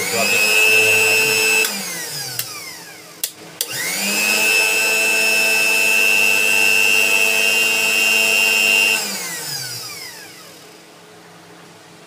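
Bajaj mixer grinder motor running with no jar on a test after its faulty rotary switch was replaced with a new one. It starts up with a high whine, runs a second and a half, then spins down. A few clicks follow, then it runs up again, holds steady for about five seconds, and winds down after it is switched off.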